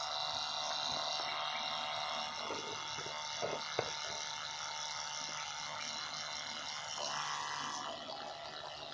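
A thin stream of water pouring from a small pump hose into a shallow muddy puddle, a steady splashing, over a low steady hum. There are a couple of short clicks about three and a half seconds in.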